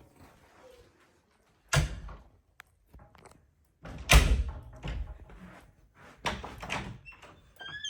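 Several separate knocks and thuds, the loudest about four seconds in, with a brief squeak near the end.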